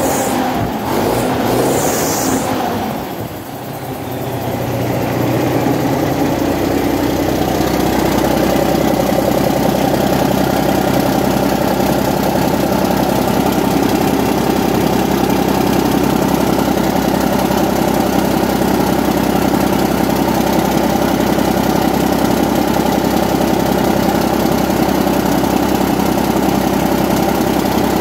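Cummins ISM inline-six diesel engine running, heard close up in the open engine bay. The sound is uneven and dips briefly about three seconds in, then settles into a steady idle.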